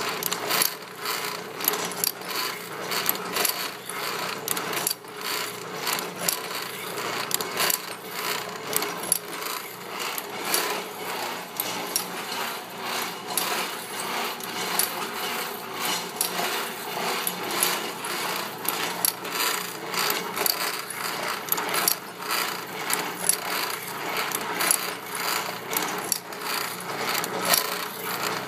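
Foley Belsaw SF1000 automatic saw sharpener running, sharpening a circular saw blade: a steady motor hum under a busy run of metallic clicks and rasps, several a second, as the feed pawl indexes the blade tooth by tooth and the grinding wheel strikes each tooth.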